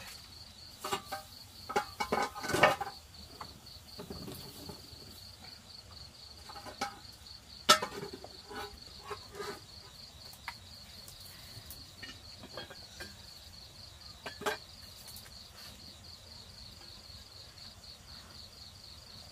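Insects chirping in a steady, evenly pulsed high trill, with a few sharp knocks and clatters of cooking pots and utensils over a wood fire, the loudest about two and a half and eight seconds in.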